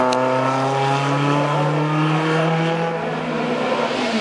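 Racing car engine pulling hard through one gear as it drives away, its pitch rising steadily for about three seconds before it fades. A single sharp click comes right at the start.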